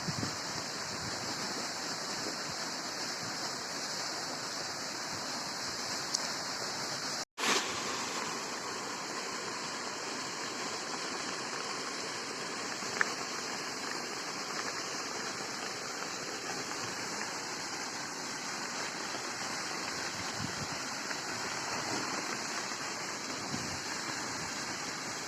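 Steady rush of flowing water from a waterfall and its stream, broken by a brief dropout about seven seconds in.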